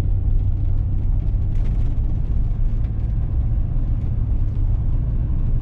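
A vehicle driving along a back road, with the steady low rumble of its engine and tyres.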